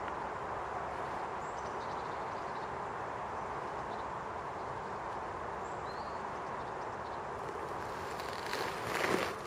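Steady outdoor background noise in a snowy park, with a few faint short bird chirps. Near the end comes a brief, louder noisy burst.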